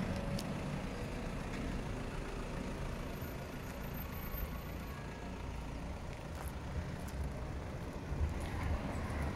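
A steady low rumble of vehicle noise with a few faint ticks.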